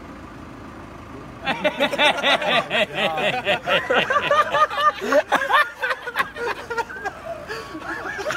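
People laughing hard, a burst of rapid, repeated laughter starting about a second and a half in and carrying on in fits, over the low steady hum of a car.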